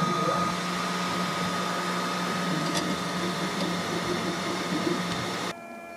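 FlashForge Adventurer 3 3D printer running mid-print: a steady fan hum with the stepper motors whining in short, shifting tones as the print head moves. The sound cuts off abruptly near the end to a quieter, steady hum.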